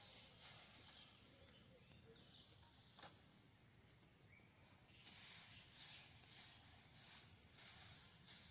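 A cricket chirping faintly, a steady high pulsing trill, with a few soft rustles now and then.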